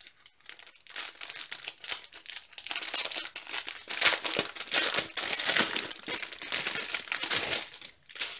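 Clear plastic packaging of a diamond painting kit crinkling and rustling as it is handled, starting about a second in and loudest in the middle.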